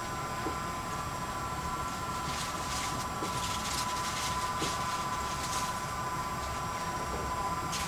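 Steady running noise of a train heard from inside the carriage: a low rumble under a constant high whine of several tones, with brief hissing rushes in the middle.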